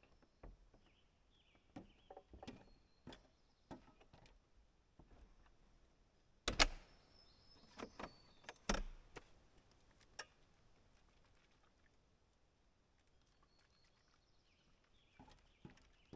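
Quiet clicks and knocks, then two sharp bangs about two seconds apart, from the truck camper's entry door being worked and shut. Light steps on the folding metal entry stairs near the end.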